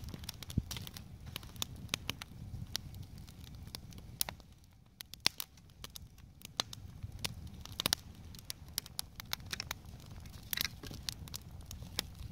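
Wood campfire crackling, with many irregular sharp pops and snaps.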